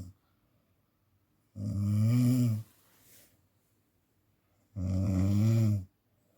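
A person snoring: two loud snores of about a second each, roughly three seconds apart, each with a low, wavering pitch.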